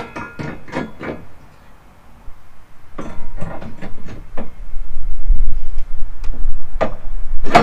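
Metal clicks and knocks as a stealth hitch beam is shifted and fitted against the car's rear bumper reinforcement: a cluster in the first second, more around three to four seconds, and a sharp, loud knock near the end. From about five seconds a low rumble of wind on the microphone comes in.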